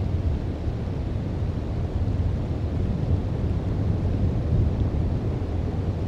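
Wind buffeting an outdoor camera's microphone: a low, unsteady rumble that swells and eases.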